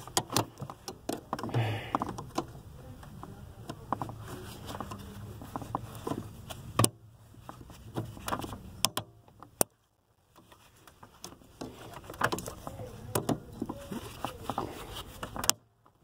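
Scattered small clicks, taps and scrapes of needle-nose pliers working at a Crown Victoria's brake light switch and its mounting pin under the dashboard.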